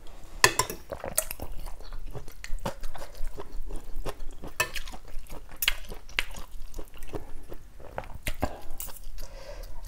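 A person chewing noodle soup, with repeated short clicks of a metal spoon and fork against the bowl.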